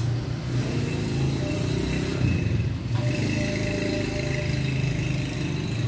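A steady low mechanical hum, like a motor running, with faint higher tones over it.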